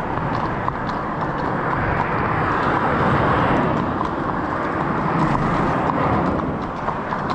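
Steady traffic noise from cars on the dual carriageway below the bridge, swelling about two to four seconds in as vehicles pass underneath.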